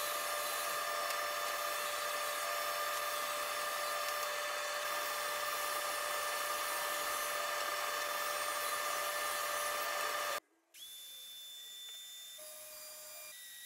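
A SawStop cabinet table saw running steadily as it rips through a plywood panel. About ten seconds in, the sound cuts off suddenly. A quieter, higher whine of a DeWalt plunge router, routing plywood along a straight-edge guide, then takes over.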